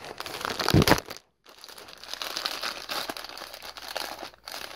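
Plastic poly mailer bag crinkling and crackling as it is handled and opened, loudest just before a brief break about a second in.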